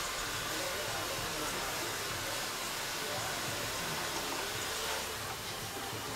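Hair dryer blowing steadily, with a slight dip about five seconds in.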